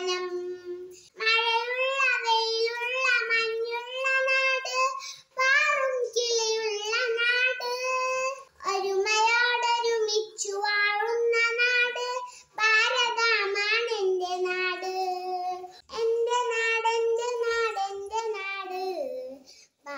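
A young girl singing solo and unaccompanied, in sung phrases of a few seconds each with short breaks for breath between them.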